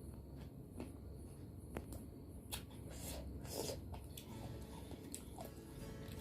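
A person chewing grapes close to the microphone: quiet chewing with occasional short, sharp mouth clicks.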